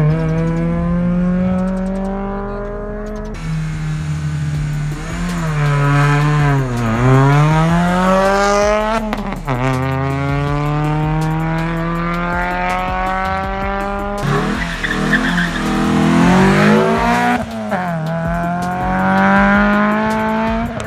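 Rally car engine revving hard through the gears on an autoslalom run: its pitch climbs in each gear and drops at each shift, dips once as the car slows for a corner about seven seconds in, then rises again, with tyres squealing at times.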